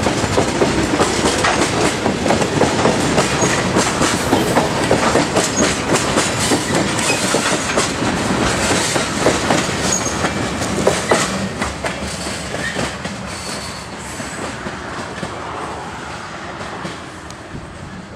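Freight train tank cars rolling past close by, their wheels clacking in a steady little beat. The last car passes about ten seconds in, and the rolling noise then fades as the train moves away.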